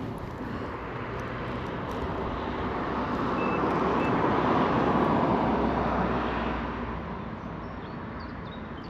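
A road vehicle driving past, its engine and tyre noise swelling to a peak about five seconds in and then fading away.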